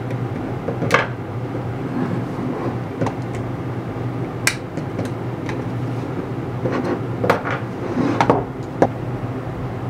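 Scattered sharp metal clicks and knocks as freshly poured lead jig heads are pried out of an aluminum jig mold with pliers and set down on a wooden bench, over a steady low hum.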